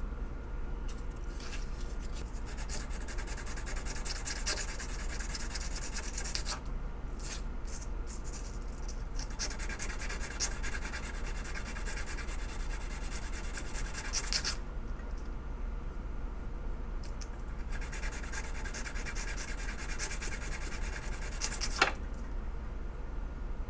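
Old doorknob-handled screwdriver being rubbed down by hand during its restoration: three stretches of quick scratchy strokes with short pauses between, and a sharp click near the end.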